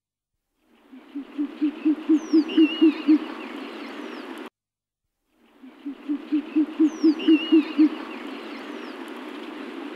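Owl hooting: a fast run of about a dozen low hoots, roughly five a second, swelling in loudness, given twice. Thin, higher chirps sound above the hoots, and the recording cuts off suddenly midway before the second run.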